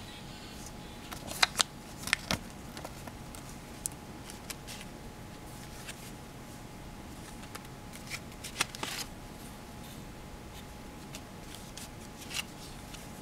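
Paper and card samples handled and alligator-clip leads moved about: scattered rustles and clicks, the loudest a pair about a second and a half in, over a faint steady hiss.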